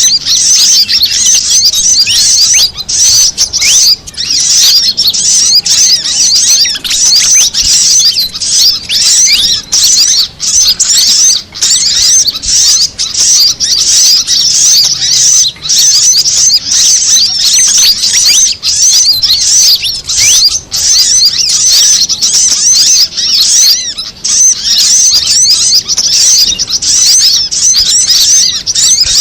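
Bird-lure recording of fantail calls mixed with calls of a brown-throated sunbird (kolibri kelapa) and a female sogon sunbird: a loud, unbroken stream of rapid, high twittering chirps overlapping one another.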